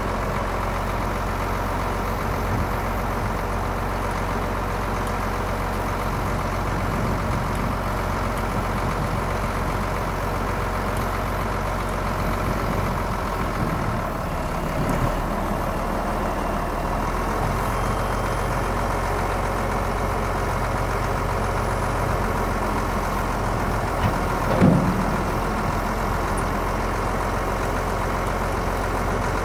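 International Harvester 1066 tractor's turbocharged six-cylinder diesel running steadily while it pulls a Hesston 560 round baler. A brief louder sound stands out about 24 seconds in.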